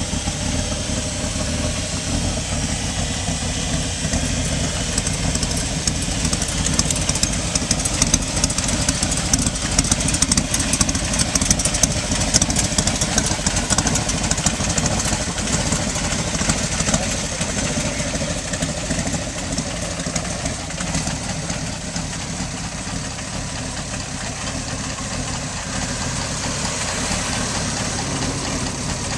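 A 427 cubic-inch stroker Ford V8 in a Cobra roadster idling steadily through custom side exhaust pipes.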